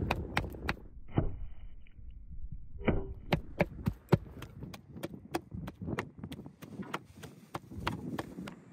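Heavy meat cleaver chopping raw meat and fat on a wooden board: hand-mincing meat for a pie filling. The chops come in a quick, uneven run, with a short lull a little over a second in.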